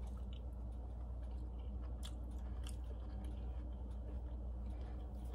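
A person chewing a mouthful of cooked cabbage close to the microphone, with soft irregular clicks from the mouth, over a steady low hum.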